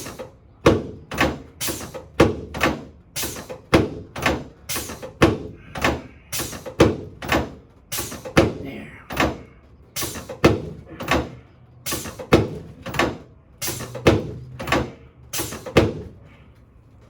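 A long run of sharp thumps, about two a second and some in quick pairs, stopping about a second before the end.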